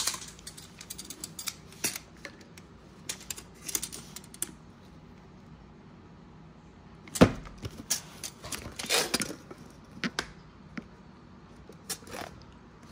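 A cardboard box being handled and measured with a metal tape measure on a wooden table: scattered small clicks, taps and scrapes, with one sharp thump about seven seconds in.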